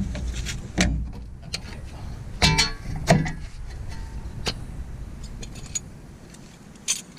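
Metal clanks and knocks of tools and brake parts at a truck's rear brake caliper, about five sharp strikes spaced a second or so apart, a couple of them ringing briefly, over a low rumble that dies away near the end.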